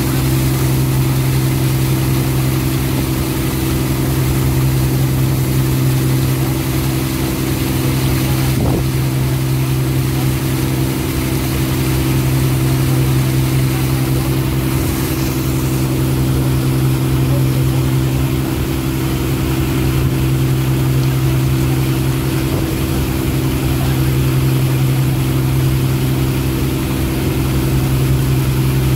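Ferry boat's engine running steadily under way, a constant low hum with a steady rush of noise over it, heard from on board.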